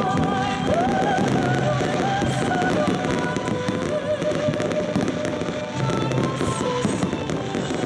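Fireworks display: aerial shells bursting with many sharp cracks and crackles, with ground fountains firing beneath them, over music playing throughout.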